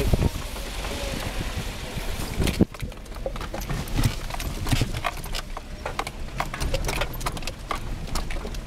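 Inside the cab of a 1997 Suzuki Sidekick in four-wheel-drive low on a rough dirt road: a quick, uneven clatter of knocks and rattles as the body jolts over the bumps, over a low engine drone. A hard thump comes about two and a half seconds in.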